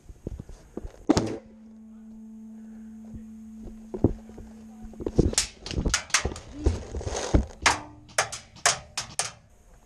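A few soft thuds, then a quick, irregular run of about a dozen sharp cracks over some four seconds: airsoft guns firing. A low steady hum runs for a few seconds before the shots.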